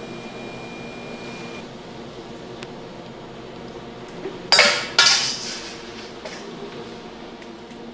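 Two sharp clattering knocks of kitchenware, about half a second apart near the middle, with a brief ring after each, over a steady low hum of room noise.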